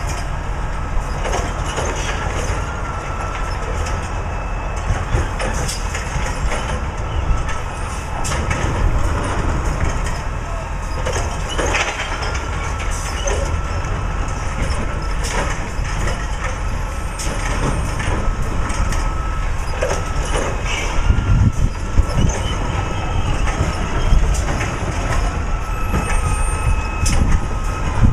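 Recycling truck engine running, with a faint steady whine and repeated knocks and clatter as containers are lifted and emptied into the body. It gets louder in the last third.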